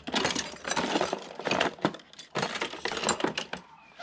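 Metal hand tools clinking and rattling against each other as a tool case is rummaged through, in several short bursts of clatter.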